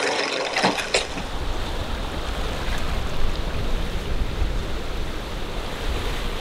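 Two sharp clicks about a second in, then ocean surf washing onto a sandy beach, a steady wash of waves with a low rumble.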